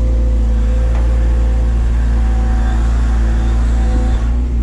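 Doosan DX180 excavator's diesel engine running at a steady pitch, a constant low drone. A faint higher tone joins it for a couple of seconds mid-way.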